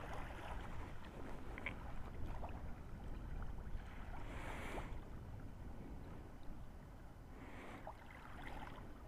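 Sea waves washing onto the shore, with a surge of wash about four seconds in and another near the end, over a low wind rumble on the microphone.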